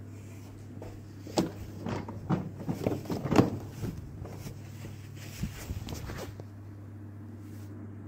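Hollow knocks and scrapes of a plastic ride-on toy car being pushed against a door frame, jammed because it is too wide to fit through. A run of knocks comes in the first few seconds, with a couple more a little later.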